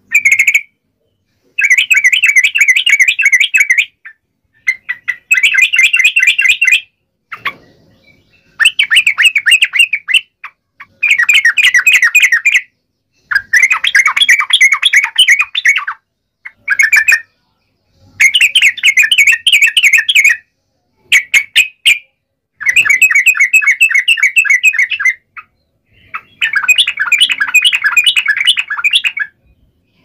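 Yellow-vented bulbuls (trucuk) giving rapid chattering song in about a dozen bursts of one to three seconds each, with short pauses between.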